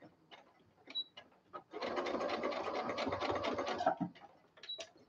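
Brother electric sewing machine stitching in one short run of about two seconds, starting near two seconds in, with a few light clicks of the fabric and machine being handled before and after it.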